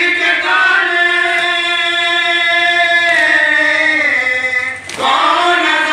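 A noha, the Urdu mourning lament for the Karbala martyrs, sung by a group of male reciters into microphones, with long held notes; the singing breaks off briefly near the end and starts again.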